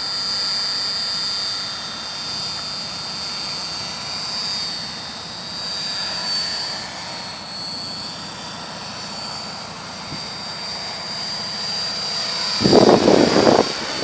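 Electric Belt-CP RC helicopter in flight: a steady high motor-and-rotor whine that wavers slightly in pitch, over wind noise. A louder burst of rushing noise comes in near the end.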